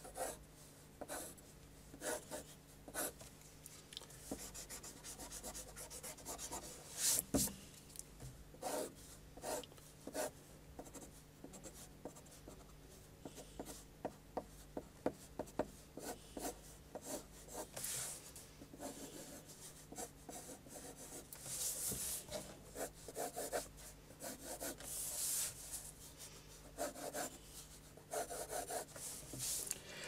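Wooden graphite pencil scratching on paper in many short, quick strokes, with a few longer strokes now and then, as freehand construction lines are sketched.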